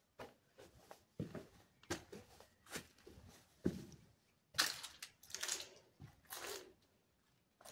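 Footsteps crunching over grit and wood chips on a concrete floor, a step about every half second, with louder scraping crunches about halfway through.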